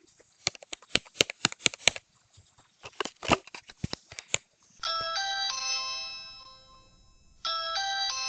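Clicks and taps of a small child's fingers fiddling with a Ring video doorbell, then the doorbell's button chime plays twice, each a short run of bell tones that rings out and fades.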